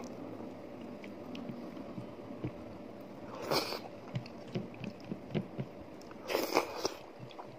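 A person eating ragi mudde and chicken soup by hand, heard close up: soft chewing and mouth clicks, with two louder noisy mouth sounds, one a little before halfway and one near the end.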